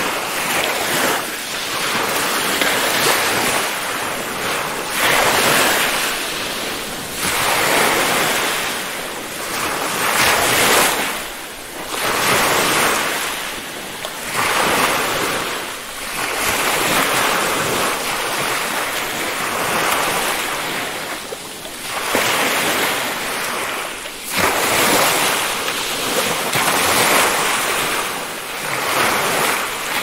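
Ocean surf: waves breaking and washing ashore in a continuous rush that swells and ebbs every two to three seconds.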